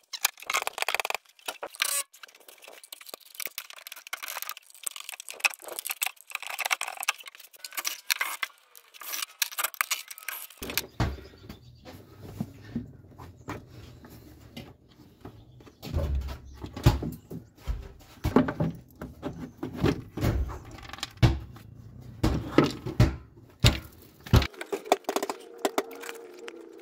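Hand tools working on a Yamaha Rhino 450's engine: a steady run of metal clicks and clinks as the intake, exhaust and clutch cover are unbolted. After about ten seconds, heavier knocks and thumps join in.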